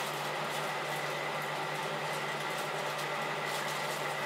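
Steady mechanical hum with a constant faint high whine, a kitchen's machine and room noise. A few faint light ticks sit on top of it.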